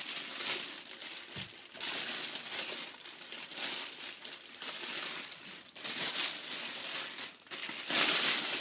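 Plastic packaging crinkling in bursts as the pump and radiator of a liquid CPU cooler are unwrapped and lifted out of their box.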